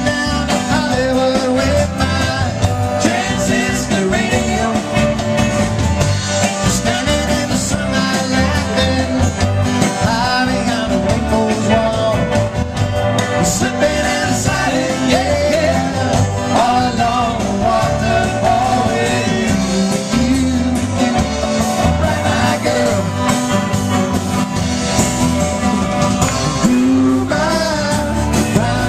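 Live band playing a song: a man singing lead over acoustic guitar, bass guitar and drums.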